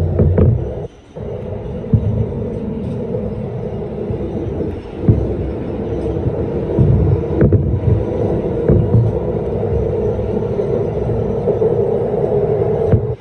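R160B subway car running between stations, heard from aboard: a steady rumble of wheels on rails with a droning hum and a few sharp clicks. The sound dips briefly about a second in.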